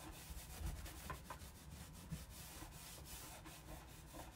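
Cloth rubbing wax into a raw wooden Christmas-tree cutout, a faint, uneven scrubbing as the bare wood is sealed before a transfer is applied.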